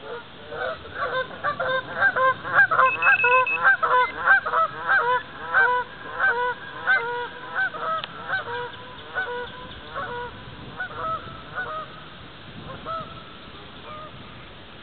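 A flock of geese honking, many calls overlapping at first, then thinning out and fading away over the last few seconds.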